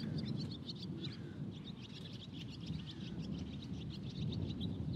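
Small birds chirping in quick, repeated short notes, over a steady low background rumble.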